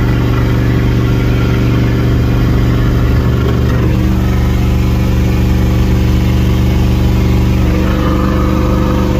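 Straight-piped tractor engine running steadily under load while seeding, its note shifting slightly about four seconds in.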